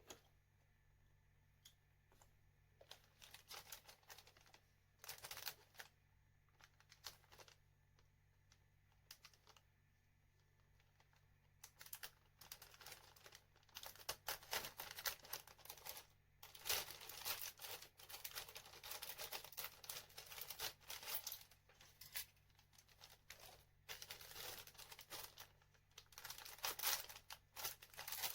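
Thin plastic packaging being handled, crinkling and tearing in short rustles, sparse at first and nearly continuous from about halfway through.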